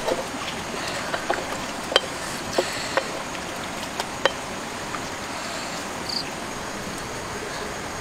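Wood fire crackling under a cooking pot: a steady hiss with a handful of sharp pops, most of them in the first half.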